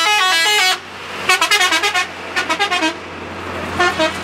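Bus telolet horn playing quick runs of stepped notes in several short bursts, over a steady low hum.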